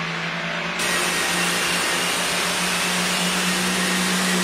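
Turbocharged pulling-tractor engine running hard on an engine dyno at high revs, a steady loud drone that gets louder and brighter about a second in as it climbs toward full power.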